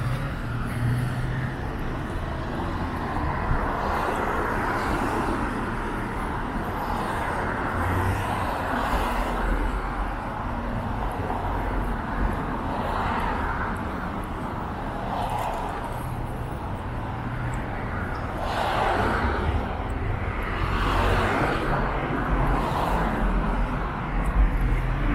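City street ambience: steady traffic rumble and tyre hiss from passing cars, swelling and fading as vehicles go by.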